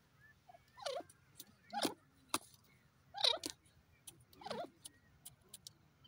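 Grey francolin giving a series of short calls, about five, spaced roughly a second apart.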